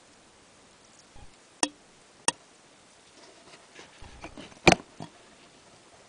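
Handling noise: a few sharp clicks and taps, with soft low bumps between them and the loudest click a little past halfway.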